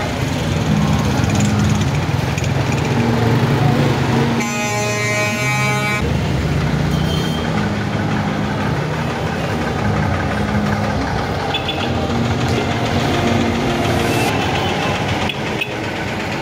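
Night street traffic: auto-rickshaw and truck engines running as they pass. About four seconds in, a vehicle horn sounds for about a second and a half.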